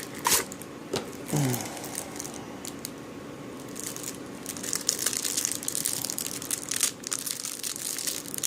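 Plastic trading-card packaging crinkling and tearing as it is pulled open by hand, with a few sharp clicks at the start and the crinkling growing denser about four seconds in.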